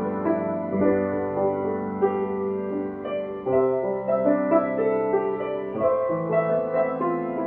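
Solo piano playing a slow piece, with held chords that change every second or two.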